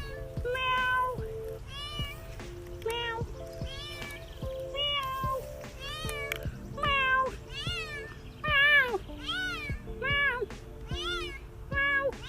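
Domestic cat meowing over and over, a long run of short calls that rise and fall in pitch, more than a dozen of them, with background music under them.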